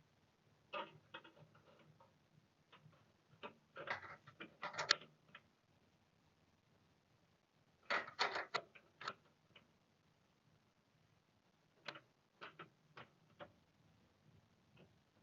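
Small clicks and light metallic rattles of a screw and screwdriver being handled at a PC case while fastening a graphics card's bracket. They come in short clusters about a second, four seconds, eight seconds and twelve seconds in.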